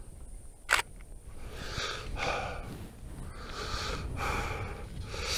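A single sharp click about three-quarters of a second in, then a man breathing hard, several audible breaths in and out close to the microphone.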